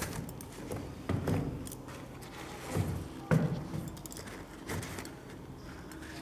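Handling noise from a sneaker being turned over in the hands: several dull knocks with light rustling between them.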